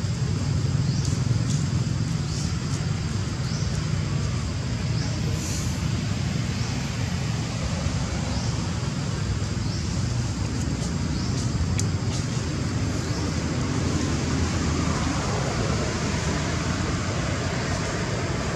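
Steady low outdoor background rumble with a hiss, and faint short high chirps repeating about once a second.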